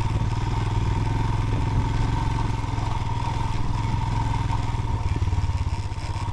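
Royal Enfield motorcycle engine running steadily as the bike is ridden, with an even, rapid pulse of firing strokes.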